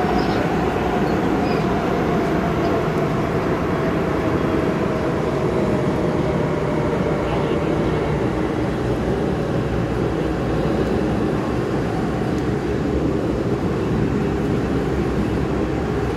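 MTR M-Train electric multiple unit running through a tunnel, heard from inside the car: a steady rumble of wheels on rail with a faint whine that slowly falls in pitch.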